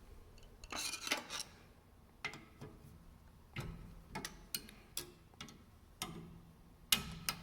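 Metal clinks and clicks of wrenches working the riving knife bolts on a table saw. A quick cluster comes about a second in, then single sharp clicks at uneven half-second intervals.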